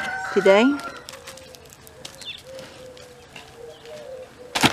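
Faint bird calls with a low wavering note, then one loud, sharp knock near the end.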